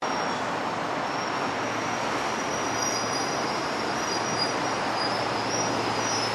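JR Freight EF210 electric locomotive hauling a freight train toward the station, a steady rumble of the train on the rails. Thin high tones come and go above it.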